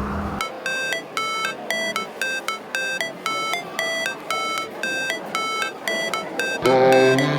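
Background music: a high, plinking synth riff of short repeated notes with the bass dropped out, until a fuller beat with bass comes back in near the end.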